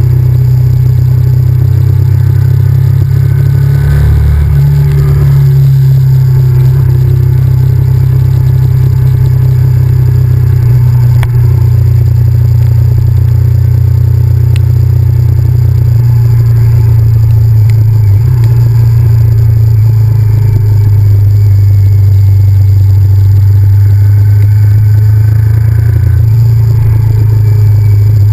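Honda VTR1000F's 90-degree V-twin engine running under way, loud and steady, with its note shifting a few times as the throttle or gear changes, about four seconds in and again near the end.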